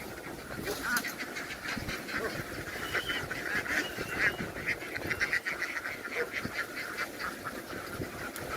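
A large flock of domestic ducks quacking, many short calls overlapping without a break.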